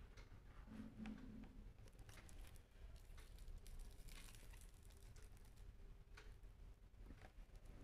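Near silence: faint room tone with a low hum, a few soft scattered clicks and a brief light rustle about four seconds in.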